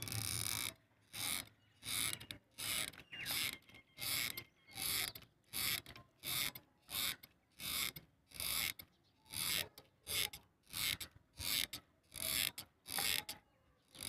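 Hot glue gun's trigger squeezed over and over, its feed mechanism ratcheting in short clicking bursts at a steady rhythm of about one and a half a second as it pushes out blobs of glue.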